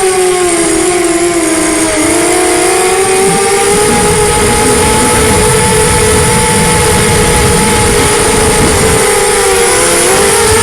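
Helipal Storm SRD250 Pro racing quadcopter's brushless motors and Gemfan 5045 bullnose propellers whining, with the pitch dipping about a second or two in, then holding steady and wavering with throttle changes near the end. Strong wind buffets the microphone underneath as a low rumble.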